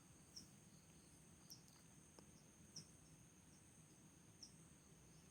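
Near silence, with a faint steady high-pitched insect trill and a few soft chirps about a second apart.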